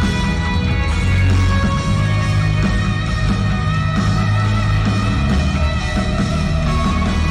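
Band playing loud rock music, with electric guitar over a heavy bass line.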